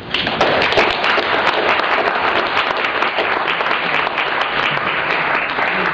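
Audience applauding, breaking out all at once and easing off slightly near the end.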